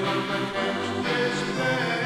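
Music: a folk song with voices singing over instruments.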